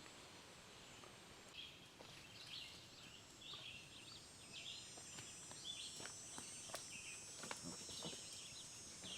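Faint outdoor ambience with small bird chirps repeating every half second or so over a low hiss.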